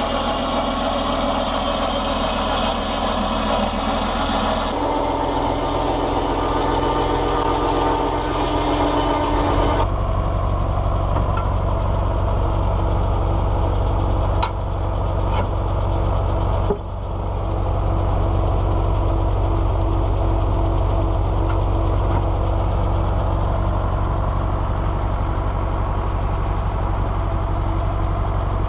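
A Fordson Power Major tractor engine runs steadily, driving the 4 ft 6 in carbide-tipped circular blade of a rack sawmill through PTO. For about the first ten seconds a loud hiss rides over the engine as the blade cuts through the log. The hiss stops suddenly, leaving the engine and saw running on alone.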